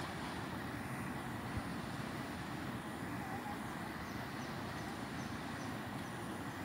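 Fast-flowing brown floodwater of a swollen river rushing past the bank, a steady low rumble.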